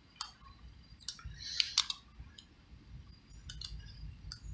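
Screwdriver clicking and scraping against the screws and metal clamp of a zinc and brass male hose coupling as it is tightened onto a garden hose: a handful of light, irregular clicks with a short scrape about a second and a half in.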